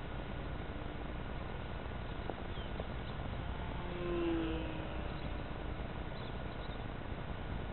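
Steady hiss, with a short, faint pitched sound about four seconds in that dips slightly in pitch.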